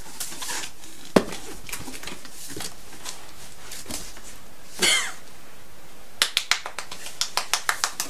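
Cardboard boxes handled: a single sharp knock about a second in, then a run of quick clicks and knocks from about six seconds on as the boxed Keurig Vue V700 is worked up out of its shipping carton. A brief voice sound comes near the middle.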